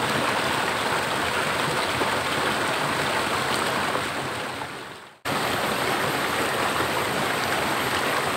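Steady rushing of a small waterfall spilling into a river pool. It fades out about five seconds in and comes straight back.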